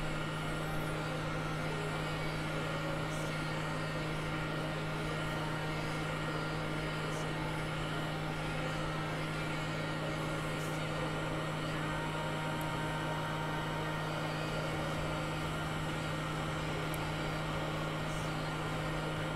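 Hot air rework gun blowing steadily, its fan giving a constant hum with an airy hiss, as it heats a phone logic board to loosen a soldered metal shield.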